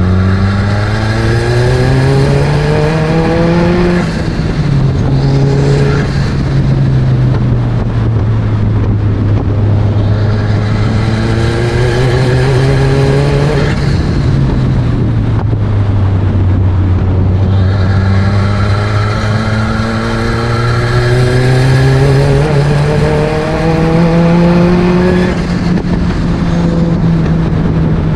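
Turbocharged four-cylinder engine of an MEV Exocet track car pulling hard, heard from its open cockpit over wind rush. The revs climb, drop at an upshift about 4 seconds in, hold steadier through the middle, then climb again to another shift near 25 seconds.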